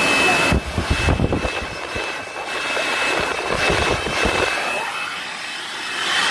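Ryobi electric blower-vacuum running in blow mode: a steady rush of air over a thin, high motor whine, with uneven low gusts of air during the first few seconds.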